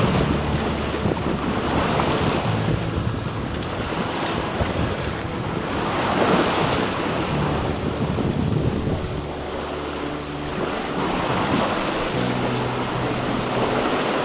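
Sea water rushing and splashing past the hull of a sailboat under way in open ocean, swelling and easing every few seconds, with wind buffeting the microphone.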